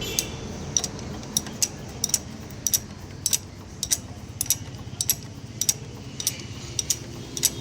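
Sharp metallic clicks from a wrench tightening a nut on a Hero Splendor's front end, about two to three a second in an uneven rhythm.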